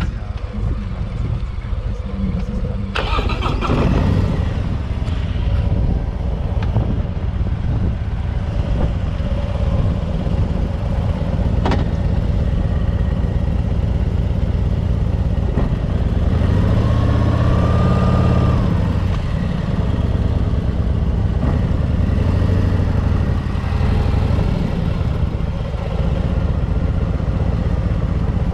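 Harley-Davidson Milwaukee-Eight 117 V-twin motorcycle engine running under way with a rapid low beat. The pitch rises as the bike accelerates about two thirds of the way through, then settles.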